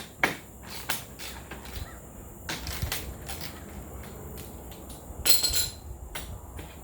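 Hand tools and car parts being handled during a radiator removal: scattered clicks and knocks, with a short metallic clatter about five seconds in.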